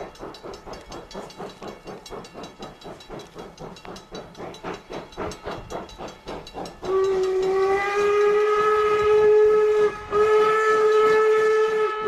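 Steam locomotive working hard with rapid, even exhaust chuffs. About seven seconds in, its steam whistle starts a long, loud blast over the chuffing, with a brief break near ten seconds.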